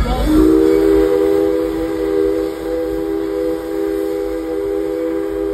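Train whistle sounding one long, steady three-note chord that begins just after the start.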